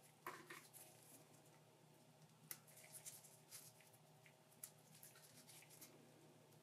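Faint soft clicks and rustles of small plastic parts of a figma action figure being pulled apart and fitted together by rubber-gloved hands, over a faint steady room hum.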